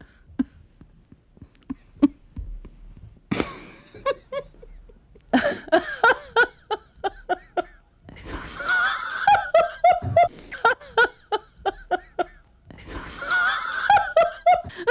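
A woman laughing in several bouts of quick repeated "ha" pulses, about four a second, with short breaths and pauses between bouts.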